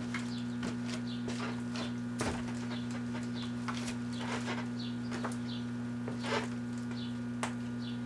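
Kenmore microwave oven running with a spaghetti squash inside, giving a steady electrical hum. Scattered short clicks and crackles sound over it, the loudest about two seconds in and about six seconds in.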